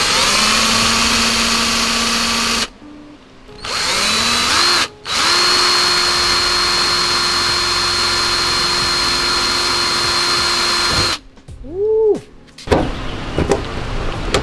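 Cordless drill boring holes through a bolt-on widebody over-fender into the car's fender. The motor runs at a steady whine in three stretches with short stops between, the longest about six seconds. Near the end it gives a brief rev up and back down, followed by a few light clicks.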